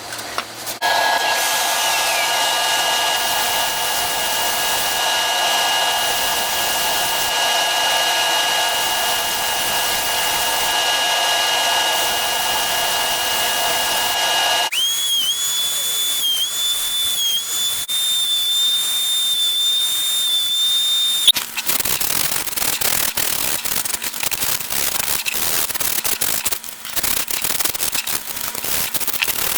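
Woodturning power tools running in three stretches. First a steady mechanical hum with several fixed tones over a hiss. Then, about 15 seconds in, a single high whine that wavers slightly. From about 21 seconds in comes a dense, rapid crackle of tool or abrasive against spinning maple.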